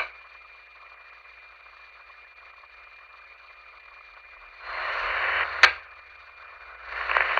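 Police radio between transmissions: a sharp squelch click at the start, then a faint hiss with a thin steady whine. About five seconds in, a burst of static of about a second comes as the channel is keyed, and it cuts off with another sharp squelch click.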